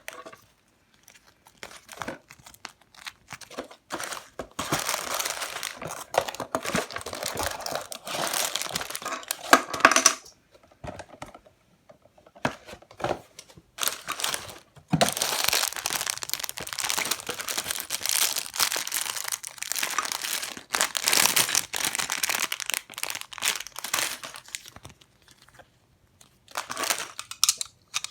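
LEGO set packaging being handled and torn open: crinkling and crackling in irregular spells with short pauses.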